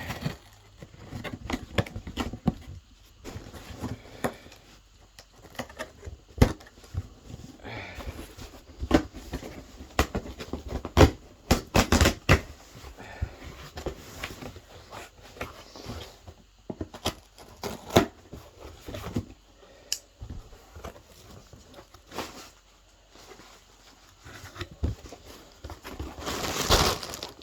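A cardboard box and its packaging being opened by hand: tape and packaging torn and cut, paper and plastic crinkling, with scattered knocks and handling clicks. A longer rustle comes near the end.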